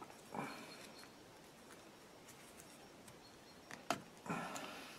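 Faint clicks and rustling from hands working a circlip off the throttle shaft of a Simms diesel injector pump, with a sharper metallic click just before four seconds in.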